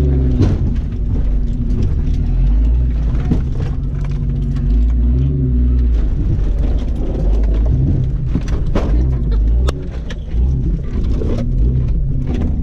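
Jeep Cherokee XJ engine running at low revs inside the cab while crawling an off-road course, its pitch rising and falling with the throttle. Scattered knocks and clunks run through it.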